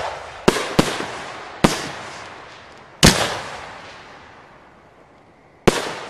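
Aerial fireworks shells going off in a display: five sharp booms, each trailing off slowly, the loudest about three seconds in.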